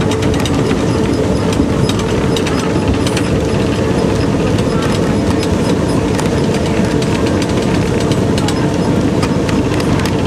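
Mount Washington Cog Railway train riding the steep rack track: a steady, loud running rumble with a rapid, irregular clatter of clicks and clanks from the wheels and cog gear on the rails.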